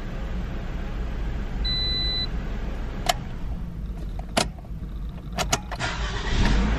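Toyota RAV4 engine running steadily, with a short beep about two seconds in. A series of sharp clicks follows as the ignition is switched off and back on, and the starter cranks the engine back to life near the end.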